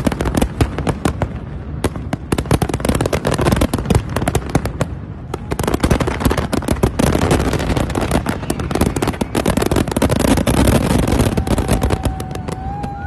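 A fireworks display going off in rapid succession: dense, continuous crackling and popping over a low booming rumble of shell bursts, with only brief lulls.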